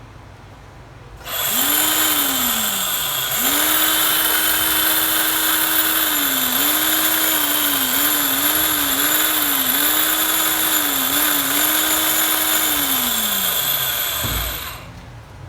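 National 6813 24 V cordless hammer drill running free: a short burst that spins up and winds down, then a long run at full speed with several brief dips in speed as the trigger is eased, winding down near the end with a low thump.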